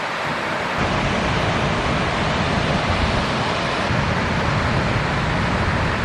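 Steady wash of breaking ocean surf, with wind buffeting the microphone as a low rumble that picks up about a second in.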